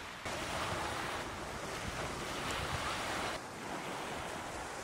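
Wind blowing on the microphone over the sea washing against a wooden wharf: a steady rushing noise that steps up just after the start and drops suddenly a little past three seconds.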